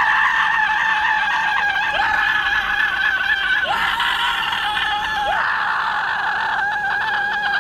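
A man's long, high-pitched scream held at one pitch, dipping briefly a few times before carrying on, and falling away right at the end.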